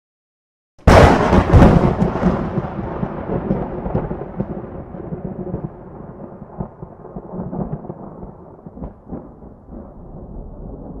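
A sudden loud thunderclap sound effect about a second in: a sharp crackling crash that dies away into a long low rumble, with smaller crackles along the way.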